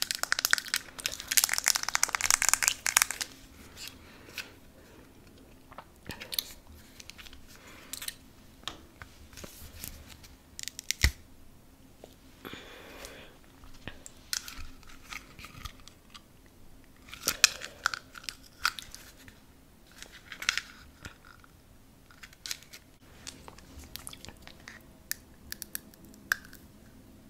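Close-miked biting, crunching and chewing of an edible treat made to look like a Gucci shoe. A dense run of crackly crunching comes in the first three seconds, followed by scattered crisp crunches, clicks and softer chewing, with a few louder bites further on.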